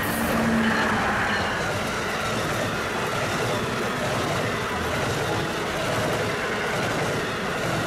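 An Amtrak electric passenger train, an ACS-64 locomotive hauling a line of coaches, passes close at speed. It makes a continuous rush of wheels on the rails and wind, loudest about a second in as the locomotive goes by, then steady as the coaches stream past.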